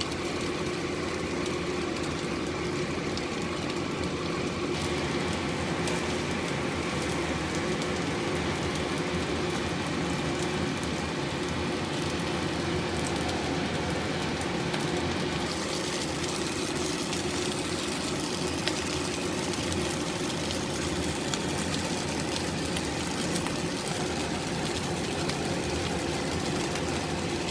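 Fried rice stir-frying in a wok over a steady mechanical hum, with light sizzling and short scrapes and clicks of the spatula; the hiss grows brighter about halfway through.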